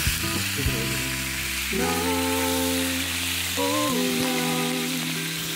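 Pork belly, vegetables and freshly added kimchi sizzling and steaming on a hot griddle over a butane burner. Background music with a sung melody comes in about two seconds in.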